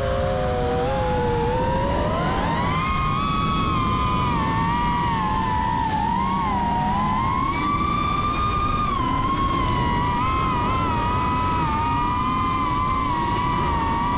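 FPV quadcopter motors whining, several close pitches rising and falling together with the throttle, over a steady rushing noise.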